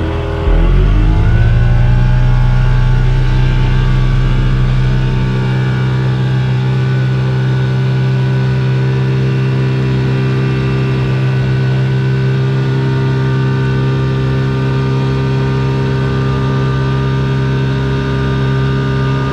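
Outboard motor on a small RIB revving up in the first couple of seconds, then running steadily at high revs. The boat is loaded with three people, about 320–330 kg, and cannot get up on plane.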